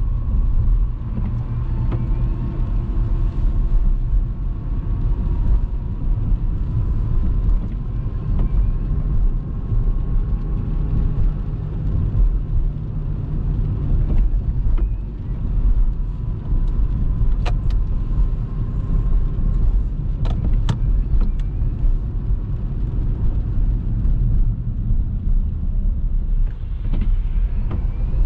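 Car driving along, a steady low rumble of engine and road noise with a faint thin whine above it. A few short, sharp clicks come about two-thirds of the way through.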